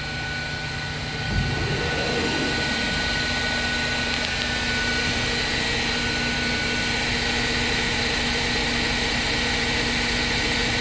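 Fadal CNC mill fly-cutting (decking) a cylinder head: a steady machining drone with a constant whine above it, getting louder about a second and a half in.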